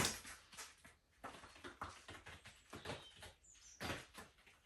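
Irregular light taps and clicks of a whippet moving about on a hard floor, with a brief faint high squeak about three and a half seconds in.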